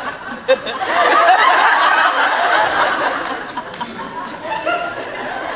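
Large audience laughing after a joke, swelling about a second in and slowly dying down toward the end. A brief sharp knock comes about half a second in.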